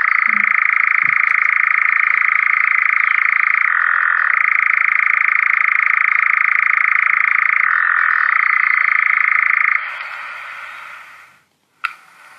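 Recording of a European nightjar's song: one long, continuous churring trill that drops briefly in pitch about every four seconds, stopping about ten seconds in. A sharp tap follows near the end.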